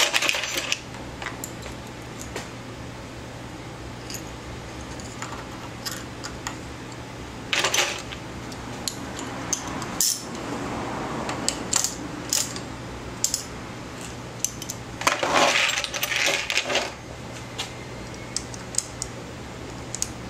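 Small metal tools and hardware clinking and clattering in scattered bursts, the longest cluster about three-quarters of the way through, as an Allen wrench and bolts are handled while a bicycle disc brake caliper mount is fitted.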